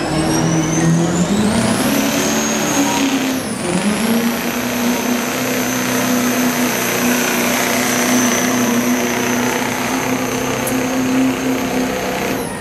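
2006 Chevy Duramax 6.6-litre turbo-diesel V8 under full load pulling a sled, its turbo whistling loudly. The whistle rises during the first two seconds as the engine climbs, dips briefly a few seconds in, then holds high and steady with the engine running hard beneath it.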